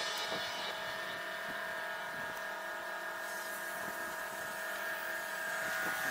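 A steady mechanical hum with a thin held whine and hiss, without change.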